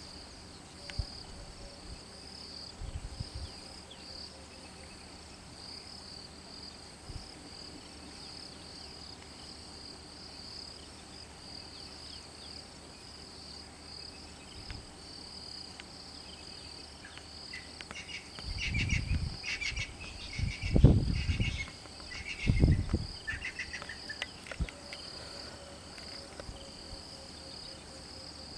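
Steady high-pitched insect chorus with a fast pulsing trill. Past the middle, small birds chirp for several seconds, and three low rumbling bumps are the loudest sounds.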